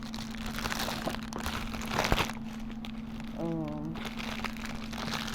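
Plastic packaging crinkling and rustling as it is handled, with one sharper click about two seconds in, over a steady low hum.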